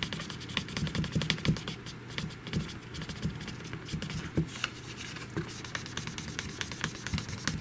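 Irregular scratching and small clicks, several a second, of a plastic screen protector being rubbed and pressed on a Samsung Galaxy Z Flip 3's screen.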